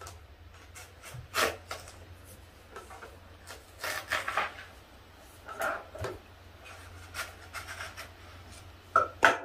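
Kitchen knife cutting through a whole watermelon on a wooden cutting board: irregular scraping, crunching strokes through the rind, with two sharper, louder ones near the end as the melon is cut through.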